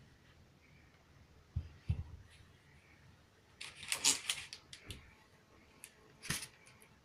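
Handling noise as a gas blowtorch, pliers and styrofoam blocks are set out on a cloth-covered table: two soft thumps about two seconds in, a crackling rustle around the middle, and a sharper clatter near the end.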